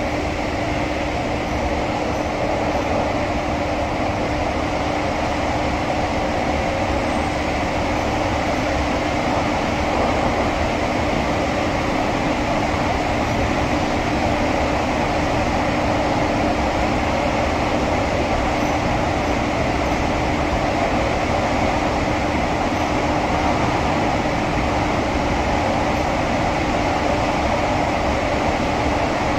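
SMRT CT251 metro train running at a steady speed, heard from inside the carriage: a constant rush and rumble of the ride with a steady low hum.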